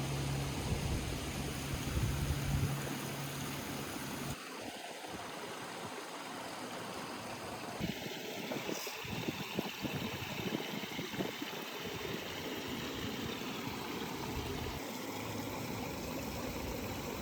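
Flowing river water, a steady rushing trickle, after a low steady hum in the first four seconds. Two short, mid-pitched tones sound about five and eight seconds in.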